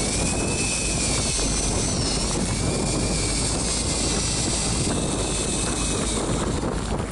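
Steady wind and boat rumble, with a motor whine that wavers in pitch and stops about six seconds in.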